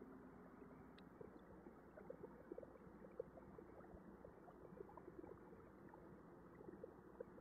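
Near silence: faint low background noise with a few tiny clicks.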